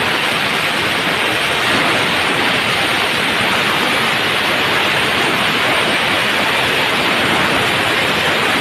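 Compressed air blowing out of a Power Craft 3 HP, 120-litre air compressor's tank through an opened outlet valve: a loud, steady hiss.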